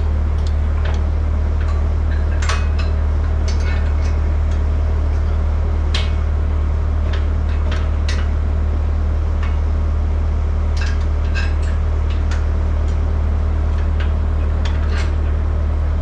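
An engine running steadily with a low drone, with scattered light metallic clinks and rattles over it.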